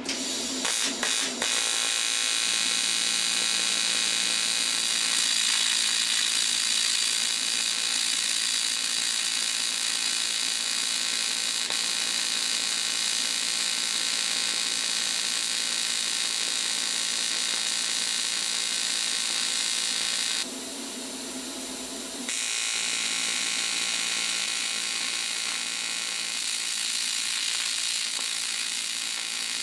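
AC TIG welding arc on aluminium sheet at about 80 amps, buzzing steadily. It sputters with a few crackles as it strikes and the cold sheet warms up. The arc breaks off for about two seconds past the middle, then a second weld buzzes the same way.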